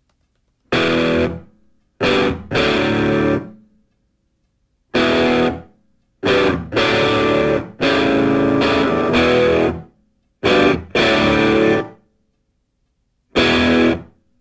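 Added background music: loud guitar chords struck in short separate blasts, each dying away within a second or two, with dead silence between them.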